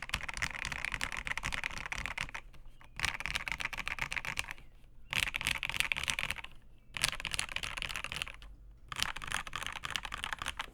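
Fast typing on an LCK75 mechanical keyboard fitted with Marshmallow switches and Infinikey PBT keycaps in an acrylic case: rapid keystrokes in five runs with short pauses between.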